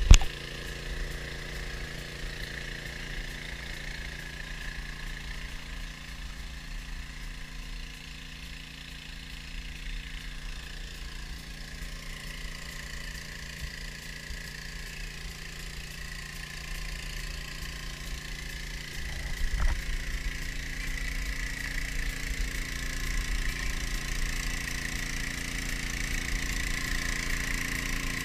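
Small gas engine of a floating suction gold dredge running steadily, with water rushing out of its sluice box into the creek; both grow louder toward the end as the dredge comes closer. A brief knock about twenty seconds in.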